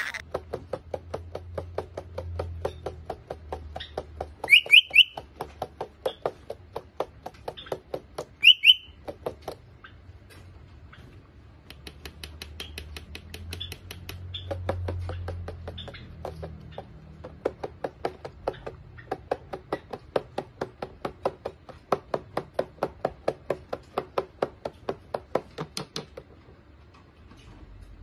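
Cockatiel pecking at a toy drum, a long run of quick beak taps several a second. Between the taps, a few short rising chirps from the bird. The taps stop shortly before the end.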